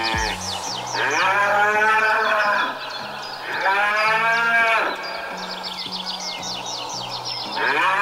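Cattle mooing: three long moos, the last starting near the end, with quick series of high chirps between them and low held notes underneath.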